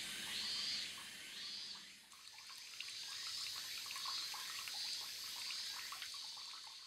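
Water trickling and dripping from a bronze dragon water spout into its basin: a thin stream with many small, irregular drips. A repeated high chirping call is heard over the first two seconds.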